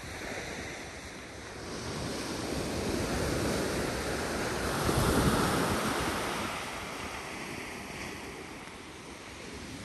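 Sea waves washing onto a pebble beach, one wash swelling to its loudest about halfway through and then fading, with wind buffeting the microphone.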